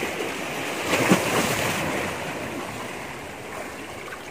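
Sea waves washing in among shoreline rocks, swelling to a louder surge about a second in and then slowly ebbing.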